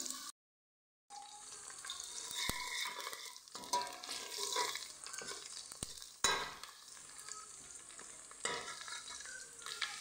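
Diced onion sizzling in hot oil in a stainless steel pot while it is stirred with a metal spoon, with scraping and a few sharp clinks of spoon on pot. The sound cuts out for under a second just after the start.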